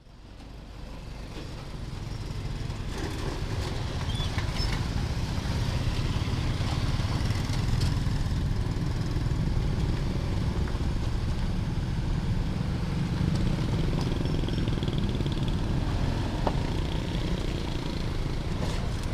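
Road traffic with motorcycle and car engines running, a steady low rumble that fades in over the first few seconds.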